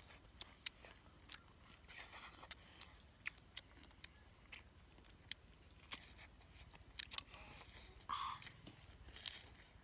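Quiet eating sounds as roasted duck is picked apart and eaten by hand: irregular small clicks and smacks of chewing and pulling meat off the bone, with a few brief rustles.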